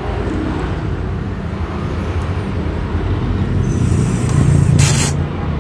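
Power drill driving a screw into the rear cover of an angle grinder, its motor running louder for about a second near the end and ending in a short sharp sound. A steady rumble lies under it throughout.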